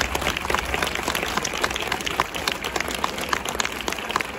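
Crowd applauding: many hands clapping in a dense, irregular patter.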